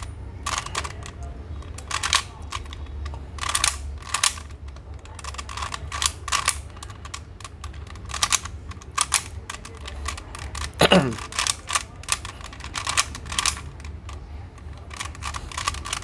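Latch Cube, a 3x3 twisty puzzle with latched one-way faces, clicking as its layers are turned to scramble it: irregular sharp clicks, about one or two a second. About eleven seconds in, a short sound slides down in pitch.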